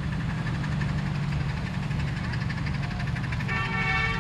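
1/8-scale live-steam model of Union Pacific 844, a 4-8-4, working uphill, its exhaust beating in a fast, steady rhythm over a low rumble. About three and a half seconds in its whistle sounds, a steady chord held to the end.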